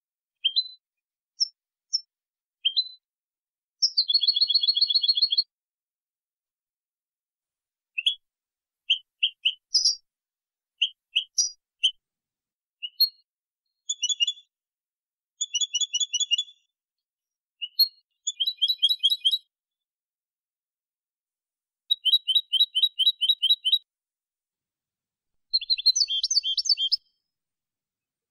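European goldfinch singing clean song (canto limpio): short rising chirps, then phrases of fast chirping trills, with complete silence between phrases.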